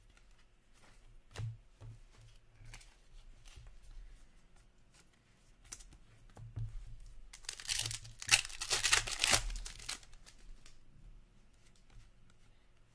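Faint clicks and slides of trading cards being handled. From about seven and a half seconds in, a loud crinkling, tearing rustle of card packaging lasts roughly two seconds.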